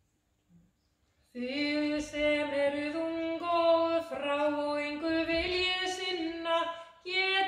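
Female singing, starting about a second in after near silence, with held notes that change pitch every second or so.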